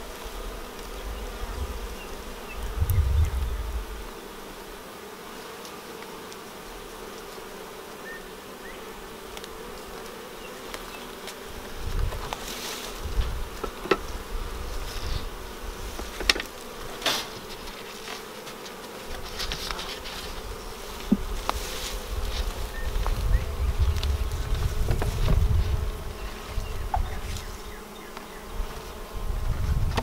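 Many honey bees buzzing steadily around an open hive, a constant hum of several pitches. A few sharp wooden clicks and knocks as hive frames are handled come in the middle, and bouts of low rumble fill much of the second half.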